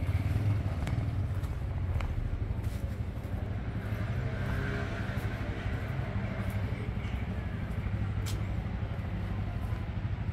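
A motor vehicle's engine running close by, a steady low rumble that swells in the middle, with a few sharp clicks.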